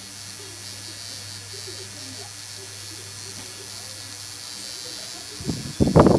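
Permanent-makeup tattoo pen buzzing steadily while it works an eyebrow. A voice starts speaking near the end.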